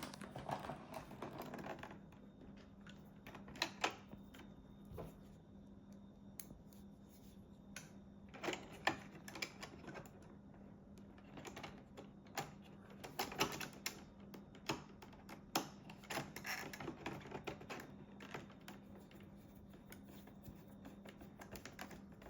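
Scattered small clicks and taps of plastic and a screwdriver, coming in short clusters, as a 3D-printed brush latch is fitted into a Roomba S9 cleaning head module and its screw is driven in with a Phillips screwdriver. A faint steady low hum runs underneath.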